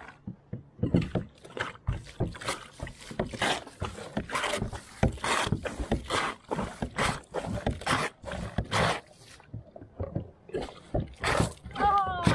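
Kayak paddle strokes in the water: a steady run of splashes and drips, the strongest about one a second, as the kayak is paddled along.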